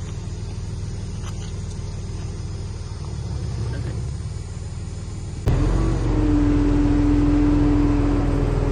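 Heavy diesel engine running with a steady low rumble. About five and a half seconds in, the sound jumps abruptly louder and fuller, and a steady whine is held for a couple of seconds.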